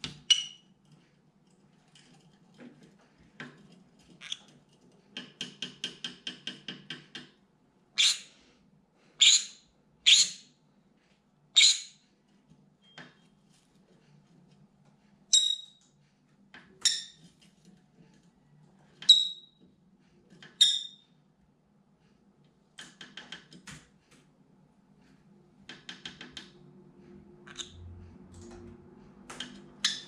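Green-cheeked conure screaming. A run of quick, quieter chattering calls comes first, then eight loud, sharp, high-pitched screams a second or two apart in two groups of four, then softer chatter again near the end.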